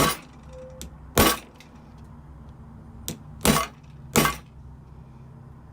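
A scalpel blade being struck into the glued seam of an Apple 87W USB-C power adapter's plastic case: four loud, sharp knocks at uneven intervals, with a couple of lighter clicks between them.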